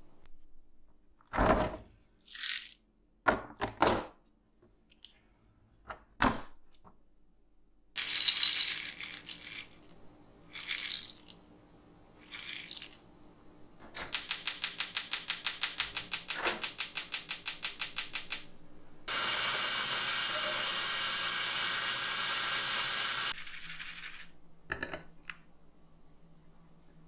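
Roasted coffee beans rattling and clicking as they are tipped from a plastic canister into a small dish, with a few knocks of the container. Then the beans are ground: first a fast pulsing rhythm of about five pulses a second for about four seconds, then a steady grinder whir for about four seconds that stops suddenly.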